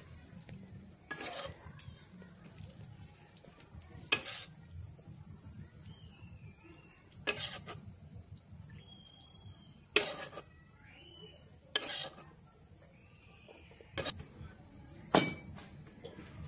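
Metal spatula knocking and scraping against a pan and plate as cooked curry is served out: about seven sharp knocks a second or more apart. Under it, a faint steady insect chirring and a few short wavering whistle-like notes midway.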